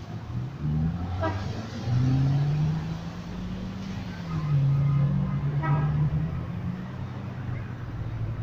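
Road traffic: motor vehicles driving past, their engine hum rising and falling in pitch, loudest about two seconds in and again about five seconds in.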